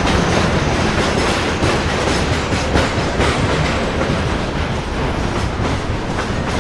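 Train running along the rails: a steady, loud rumble with the rattle and knock of wheels and carriages.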